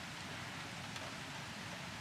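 Steady rain falling, an even hiss with a faint tick now and then.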